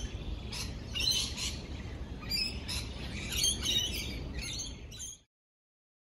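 Rainbow lorikeets chattering and screeching, several runs of high calls over a low background rumble; the sound cuts off abruptly about five seconds in.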